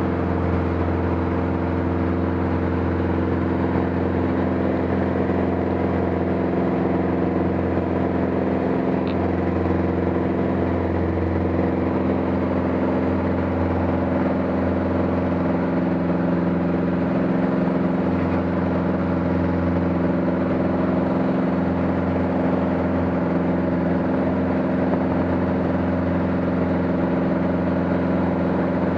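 Aircraft engine drone heard from on board in flight, a steady low hum with a stack of even tones that holds the same pitch throughout.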